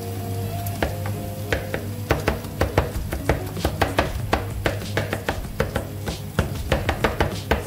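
Kitchen knife chopping fresh parsley on a wooden cutting board: sharp knocks of the blade on the board, starting about a second in and coming quickly, several a second.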